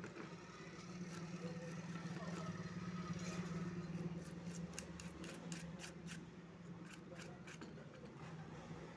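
Toothbrush bristles scrubbing a thinner-wet circuit board: a run of quick scratchy strokes, several a second, from about three seconds in. A steady low hum sits underneath.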